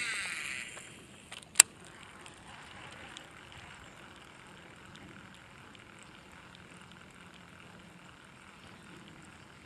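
Fishing line hissing off the reel as a cast goes out, a single sharp click as the reel is engaged about a second and a half in, then a faint steady whir of the reel being cranked fast to swim the lure across the surface.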